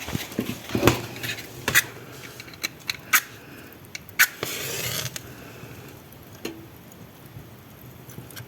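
A few sharp clicks and knocks from handling things at a fireplace being lit, with a short scraping rush a little after four seconds in.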